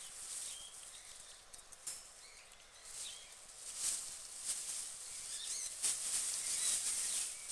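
Guinea pig munching lettuce, a rapid run of crisp crunching clicks mixed with the rustle of straw and wood shavings, growing louder about halfway through.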